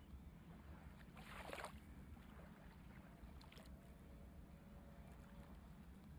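Near silence: a faint steady low rumble, with a brief hiss about a second in.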